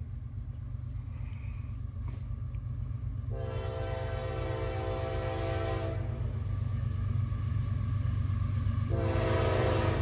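Air horn of an approaching CSX diesel locomotive. It gives one long blast of about two and a half seconds, then starts a second blast near the end. Under it the low rumble of the diesel engine grows steadily louder as the train nears.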